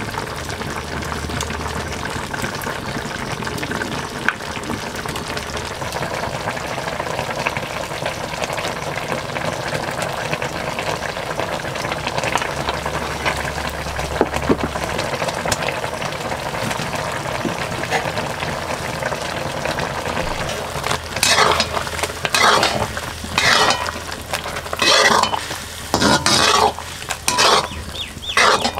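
Sliced wild mushrooms sizzling steadily as they fry in a kadai over a wood fire. About seven seconds before the end a ladle starts stirring through them, a run of roughly ten loud scraping strokes against the pan.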